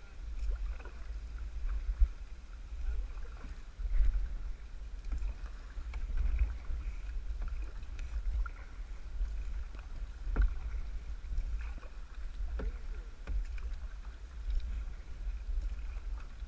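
Kayak paddling: paddle strokes in the water, swelling and falling about every two seconds, with a few sharp knocks, over a steady wind rumble on the microphone.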